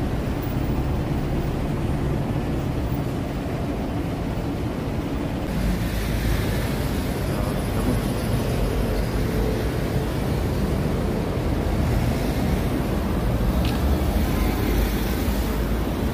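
Traffic on a busy city street, cars passing, with the low rumble of a low-floor city bus growing louder as it pulls in to the stop near the end.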